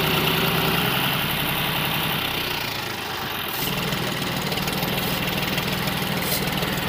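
John Deere 5105 tractor's three-cylinder diesel engine running steadily while the tractor strains with a loaded sand trailer, its rear wheels dug into sand. The engine note dips about three seconds in and then picks up again.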